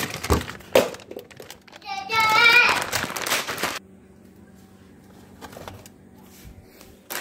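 Plastic food containers knocking and rustling as they are handled, then a baby's high-pitched drawn-out squeal about two seconds in, the loudest sound. After that only a faint steady hum with a few light clicks.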